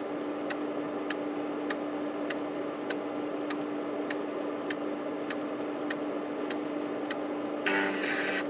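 Panasonic JU-257A135P 3.5-inch floppy drive, cover off, under a diagnostic test: the spindle motor turns the diskette with a steady hum while the head stepper clicks evenly, a little under twice a second. About three-quarters of the way in, the rhythm gives way to a louder buzzing rasp of rapid head stepping as the head seeks across many tracks.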